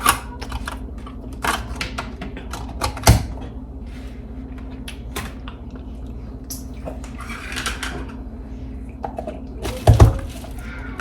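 Light clicks and knocks of dishes and utensils being handled during kitchen food prep, with two sharper, louder knocks about three seconds and ten seconds in.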